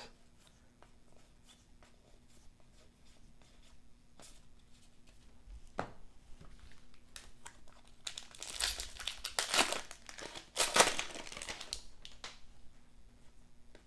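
A trading-card pack wrapper being torn open and crinkled: a loud spell of crackling tearing starts about eight seconds in and lasts some four seconds. Before it come quiet handling and a few faint ticks.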